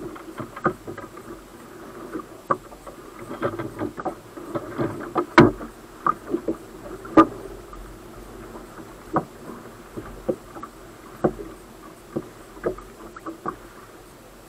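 Small waves lapping and slapping against the hull of a waverunner drifting in the shallows, heard as irregular knocks and splashes, the two loudest a little over five and seven seconds in.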